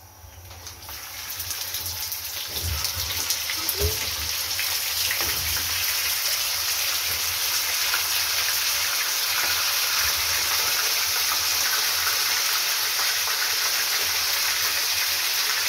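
Raw chicken pieces going into hot sunflower oil with whole spices and sizzling: the sizzle builds over the first few seconds as more pieces go in, with a few soft knocks as they land, then holds steady and loud.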